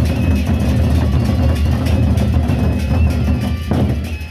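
Gendang beleq ensemble playing: large Sasak double-headed barrel drums beaten in a fast, dense rhythm with a heavy low boom. The playing thins briefly near the end.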